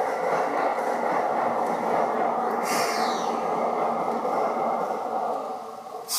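Seibu 2000 series electric train heard from inside the car, its steady running rumble easing off as the train slows. There is a brief high hiss of air about three seconds in and a sudden loud hiss of air right at the end.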